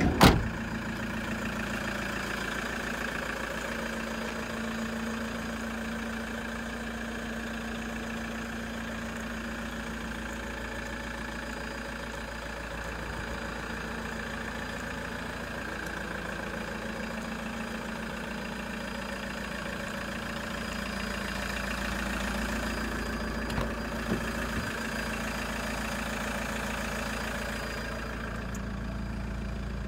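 Toyota HiAce van's engine idling steadily with an even hum. A single sharp knock comes right at the start, and two smaller knocks come about three-quarters of the way through.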